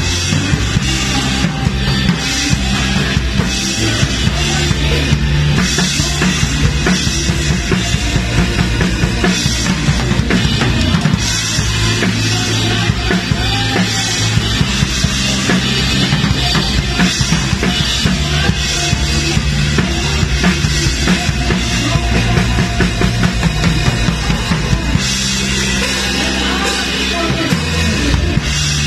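Live band music with a drum kit up front: kick drum, snare and cymbals played steadily over held bass notes that change every few seconds.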